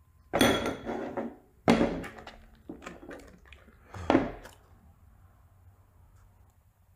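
Upturned bowls knocked over and off a wooden table by a dog's snout, making three clattering knocks: just after the start, near two seconds, and at about four seconds.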